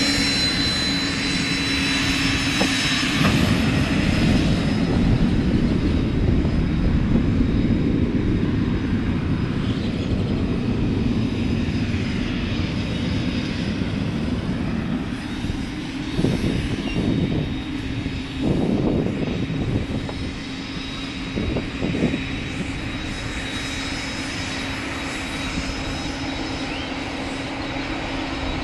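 Aircraft engine running: a steady drone, with a high thin whine that fades out about three seconds in, over a rough low rumble.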